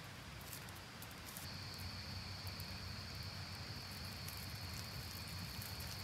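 Low, steady rumble of an open wood fire burning under a clay pot, with a few faint crackles. A thin, steady, high-pitched insect buzz comes in about a second and a half in and holds.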